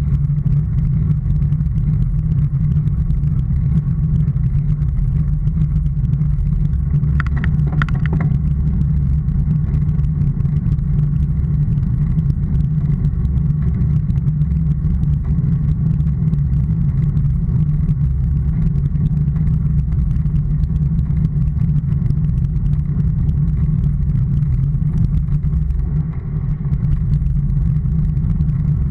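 Steady deep rumble of wind and tyre noise picked up by a bicycle-mounted action camera while the bike rolls along an asphalt lane, muffled with little treble. A short burst of clicks about seven seconds in.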